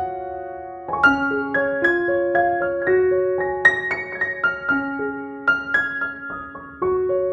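Background piano music: a melody of single struck notes and chords, each note ringing on and fading.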